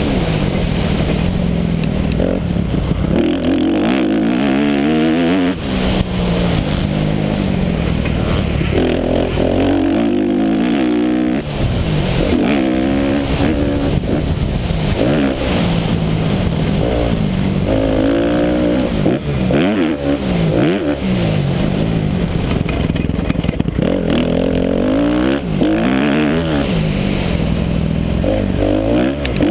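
Honda 250 motocross bike's engine racing around a dirt track, heard from on the bike: the pitch repeatedly climbs as it accelerates through the gears and drops off into the corners, with wind noise over the microphone.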